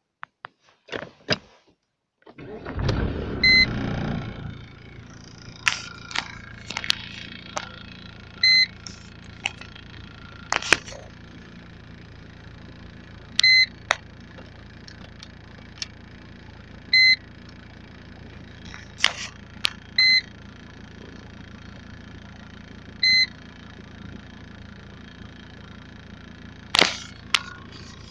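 Cold start of a Mercedes E290 TD's 2.9-litre five-cylinder turbodiesel: it cranks briefly and catches about two and a half seconds in, then idles steadily. A short electronic beep sounds every few seconds, with a few knocks and clicks.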